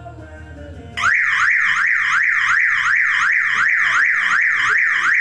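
Car alarm siren going off suddenly about a second in: a loud, rapid run of rising whoops, about three a second.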